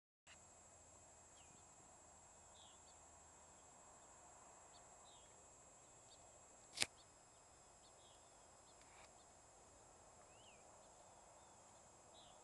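Near silence: faint outdoor ambience with scattered short bird chirps, and one sharp click about seven seconds in.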